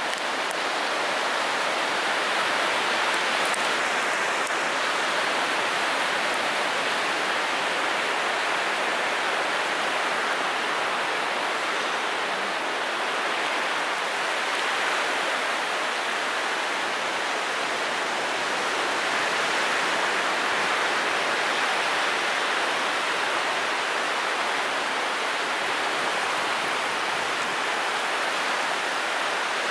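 Ocean surf on a sandy beach: a steady, even wash of breaking waves.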